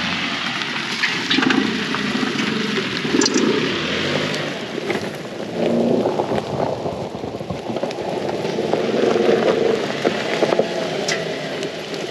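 Rain falling in large drops: a steady rushing hiss with scattered sharp taps of drops landing close by.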